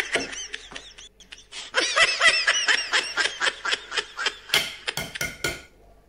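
A man's high-pitched laughter, a rapid run of short 'ha' notes, followed near the end by a few sharp taps as a raw egg's shell is cracked.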